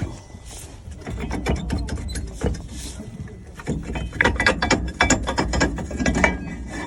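Hand ratchet wrench clicking in quick runs of strokes as caliper bolts are turned during a brake job, busiest in the second half.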